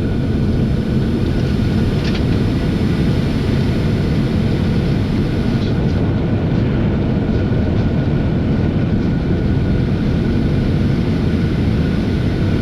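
Boeing 747-400 landing roll-out heard from the flight deck: its engines in reverse thrust and the aircraft rolling down the runway, a loud, steady rush and rumble with a thin steady whine above it.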